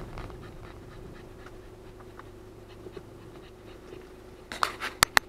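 Car engine idling with the car pulled over, then a quick cluster of three or four sharp clicks and knocks near the end, such as a handbrake, seatbelt buckle or door being worked.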